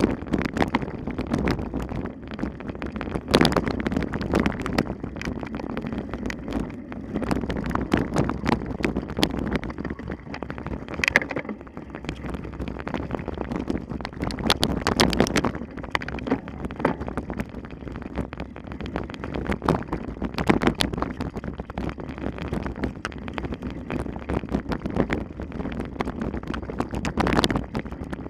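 Wind rushing over the microphone, with constant rattling, clicks and knocks from a mountain bike riding over rough ground.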